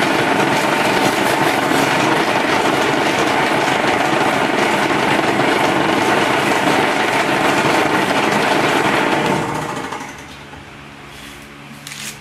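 Concrete vibrating table on coil springs running steadily, shaking a mould of wet concrete for a pig-pen slatted floor panel to compact it. The machine stops about ten seconds in and the sound falls away sharply.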